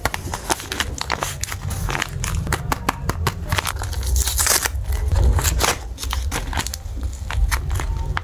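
Paper crinkling and crackling as hands handle and unfold a folded, taped white paper blind bag, in dense, irregular crackles, with a brief louder scrape about four seconds in.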